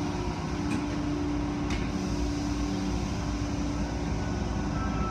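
Steady machinery hum and rushing spray of an automatic car wash tunnel running behind a glass viewing window, with a low steady tone and two faint ticks about a second apart near the start.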